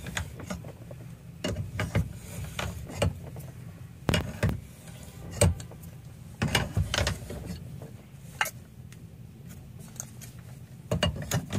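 A wrench working the nut on a steering-column lock plate compressor tool makes scattered metal clicks and clinks as it backs the nut off. This slowly releases the spring tension on the lock plate. A steady low hum runs underneath.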